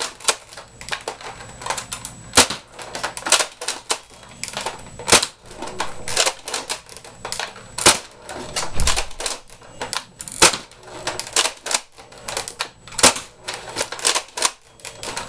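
Nerf Longstrike bolt-action dart blaster being fired repeatedly until its clip is empty. A sharp plastic snap from each shot comes about every two and a half seconds, with a run of smaller plastic clicks between shots as the bolt is worked to prime the spring.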